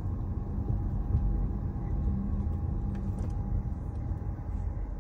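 A car driving on a smooth road, heard from inside the cabin: a steady low rumble of tyres and engine.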